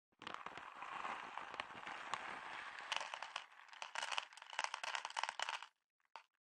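Plastic bag of Friskies dry cat food crinkling and rustling as kibble is shaken out into a plastic bowl, with many small clicks of the pieces landing. It stops about five and a half seconds in.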